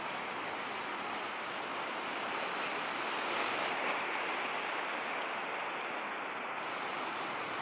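Ocean surf: waves breaking and washing in a steady rush of noise, swelling a little about three and a half seconds in.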